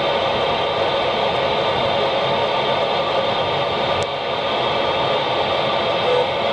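Steady FM receiver hiss from a VHF amateur transceiver tuned to the CAPE-2 satellite's 145.825 MHz downlink, with no clear voice coming through, over the car's road and engine noise. There is a single click about four seconds in and a brief tone near the end.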